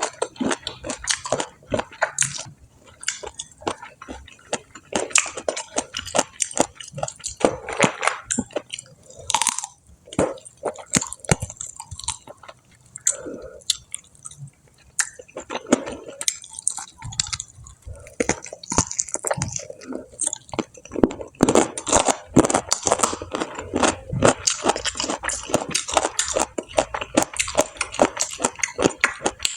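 Close-miked chewing and crunching of crispy fried food, fried chicken and fried snacks, with many irregular sharp crunches that come thicker in the second half.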